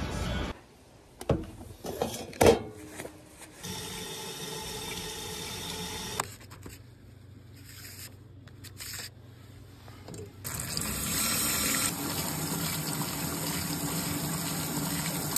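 Water running or being poured, with a few sharp knocks about two seconds in.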